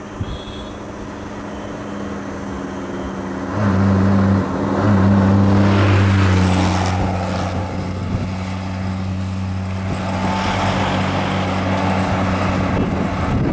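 Road vehicles passing close by, dominated by a heavy engine's steady low drone that sets in a few seconds in and runs on with a brief dip, over a rushing road noise.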